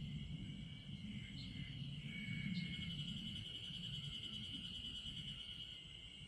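Insects chirping in a steady high-pitched chorus, with a faster pulsing trill coming in about two and a half seconds in, over a low background rumble.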